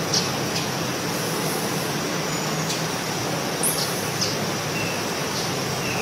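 Steady rushing outdoor ambience, like forest noise or running water, with a few brief high bird chirps and ticks scattered through it.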